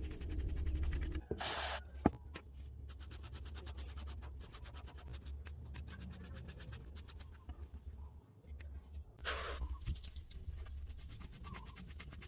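Two short hisses of spray, about eight seconds apart, over a steady low hum.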